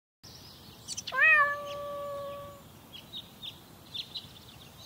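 A cat's single long meow that bends briefly at its start and is then held steady, with faint short high chirps around it.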